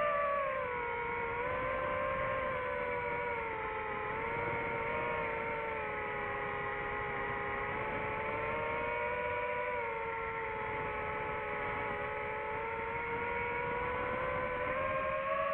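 DJI FPV drone's motors and propellers whining steadily. The pitch sags slightly and then climbs back up as the motor speed changes.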